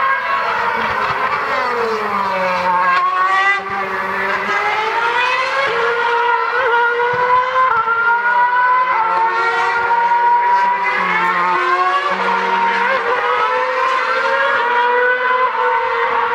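2013 Formula One cars' 2.4-litre V8 engines at very high revs. The pitch falls early on as a car brakes and downshifts, then climbs again and again with a sudden small drop at each upshift as it accelerates away.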